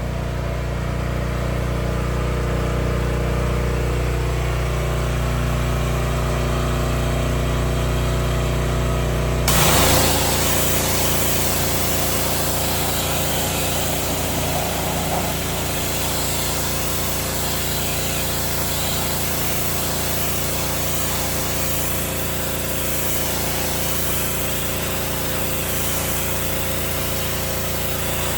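Gasoline pressure washer engine running steadily. About a third of the way in, a loud hiss of high-pressure water spray starts suddenly and carries on over the engine.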